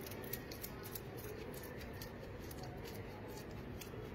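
A lime half coated in sugar and lemon juice scrubbed on wet skin: faint, irregular gritty scratching from the sugar grains.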